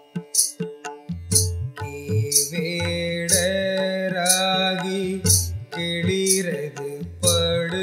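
Instrumental passage of a Tamil devotional (Carnatic-style) song: a drum beat about once a second, with a bright high hit on each beat. From about two and a half seconds in, a held melodic line with sliding notes joins it.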